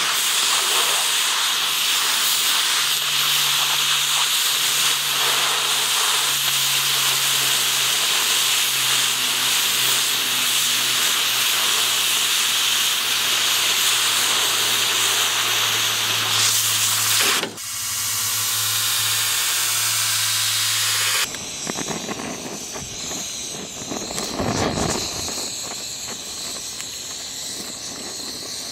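Lincoln Electric Port-A-Torch oxy-acetylene cutting torch blowing a loud, steady hiss as its oxygen jet cuts through a metal bar. About two-thirds of the way through the hiss drops off suddenly, and a few seconds later it gives way to the quieter hiss of the torch flame heating metal for a weld.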